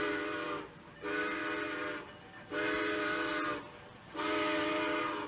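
Train whistle blowing a steady multi-note chord in four blasts of about a second each, with short gaps between.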